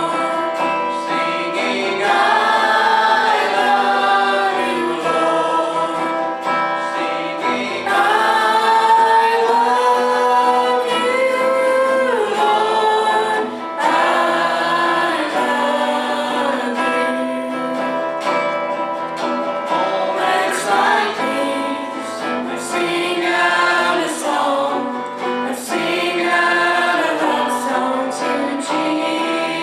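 Church praise team of mixed men's and women's voices singing a gospel song in harmony, held notes gliding from one pitch to the next.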